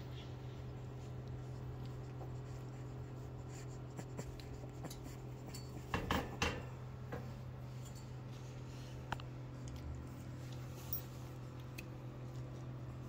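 Steady hum of an electric fan running, with a few light scratches and knocks over it, the loudest a short cluster about six seconds in.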